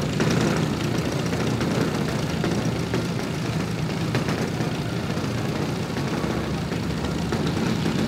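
Engine of a large-scale radio-controlled Spitfire model running steadily at low power as the model taxis on grass, propeller turning.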